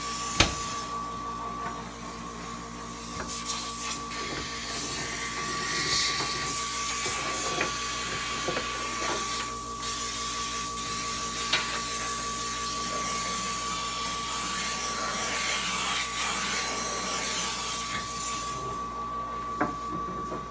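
A steady mechanical hum with a constant high whine and hiss, like a machine running, broken by scattered light clicks and one sharp knock about half a second in.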